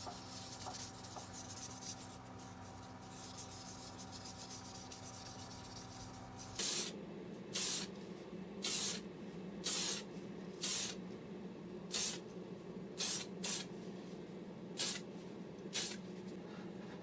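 Soft rubbing for several seconds, then an aerosol spray can fired in about ten short bursts, roughly one a second.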